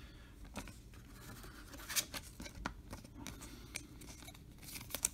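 Trading cards and a clear plastic card sleeve being handled: faint rustling with a few sharp ticks, the loudest about two seconds in.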